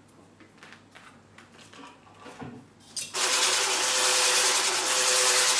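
Handheld electric whisk with a balloon-whisk attachment switches on about three seconds in and runs at a steady whir, beating egg whites in a plastic bowl toward stiff peaks. Before that, only a few faint light clicks.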